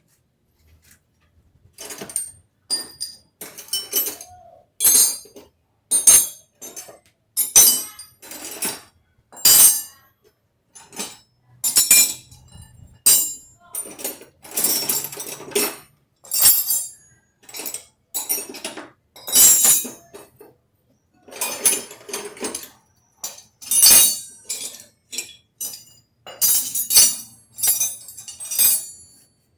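Metal tools and motorcycle swingarm parts clinking and tapping against each other: many irregular, sharp metallic clinks and knocks with a bright ring.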